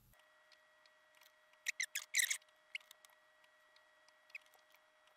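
Soldering at a circuit board: the iron tip and solder wire touching the capacitor leads and pads give a quick run of small clicks and taps about two seconds in, then a few lighter ticks, over a faint steady whine.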